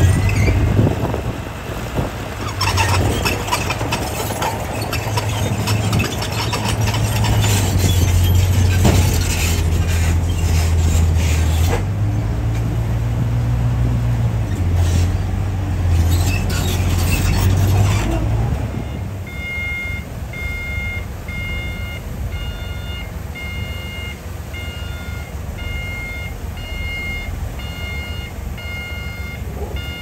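D60 crawler bulldozer's diesel engine working under load as it pushes stone, with clanks and scrapes from the tracks and blade. About two-thirds of the way in the dozer noise drops away, and a dump truck's reversing alarm beeps about once a second.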